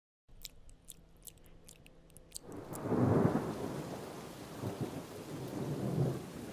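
Thunderstorm sound effect: a few scattered raindrop ticks, then rain with rolling thunder that swells about two and a half seconds in, is loudest soon after, and rumbles again twice near the end.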